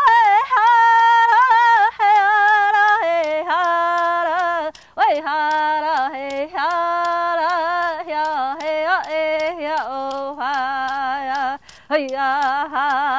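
A woman singing solo in a Native American style, unaccompanied by other voices, in high held and sliding phrases without recognisable words. The melody steps down in pitch about three seconds in and again near five seconds, with short breaths between phrases.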